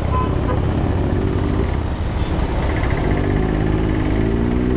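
Motorcycle engine accelerating, its pitch climbing steadily through the second half, over a constant low rumble.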